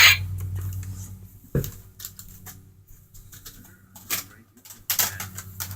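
Toy assault rifle being handled: a few separate sharp plastic clicks, with a low hum fading out over the first second and a half.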